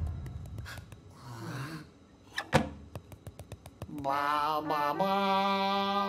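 A sharp click about halfway through, followed by a quick run of ticks. Then, about two-thirds in, several voices start a chant-like hum in harmony, settling on held notes.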